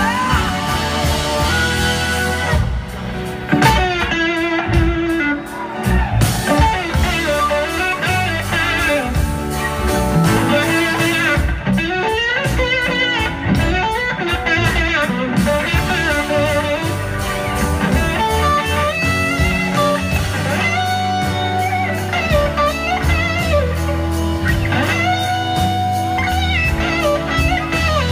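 Live blues-rock band playing, with electric guitar to the fore and its notes bending up and down in pitch over keyboards and drums.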